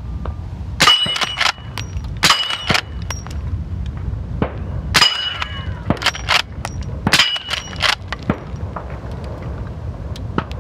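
Suppressed shots from a Marlin Dark .44 Magnum lever-action rifle firing heavy subsonic bullets, several shots a couple of seconds apart. Each shot is followed by a ringing clang of steel targets being hit, with lighter clicks between shots.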